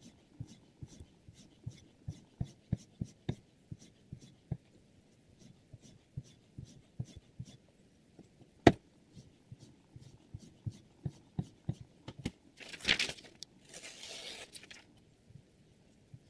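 Guided knife sharpener in use: a stream of light clicks and knocks from the stone arm and knife clamp moving, with two short rushes of scraping noise about three-quarters of the way through.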